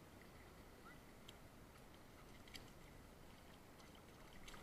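Near silence: faint outdoor background with a few small, faint clicks.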